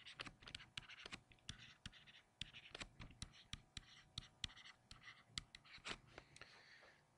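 Stylus writing by hand on a tablet screen: faint, irregular taps and short scratches as the letters are drawn.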